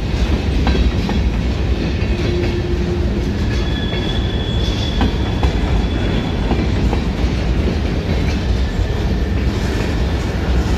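Freight train of empty centerbeam flatcars rolling past close by, a steady low rumble with the steel wheels clicking over the rail joints. A thin high squeal rises over it for a few seconds midway.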